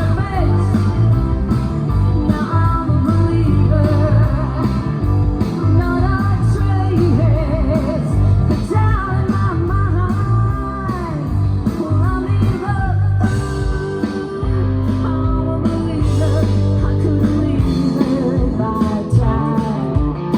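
Rock band music with guitar, and a lead melody that slides up and down in pitch over a steady bass line.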